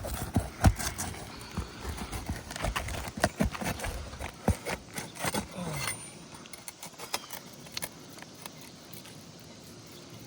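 Metal snake tool working under brittle roof shingles to pry them loose: irregular sharp knocks, clicks and scrapes, dense for about six seconds and then fewer and fainter.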